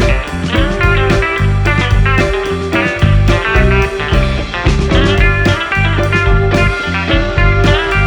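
Background music: a guitar-led blues-rock track with bass and a steady beat.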